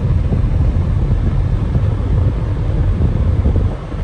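Car on the move: a steady low rumble of engine and road noise with some wind buffeting the microphone.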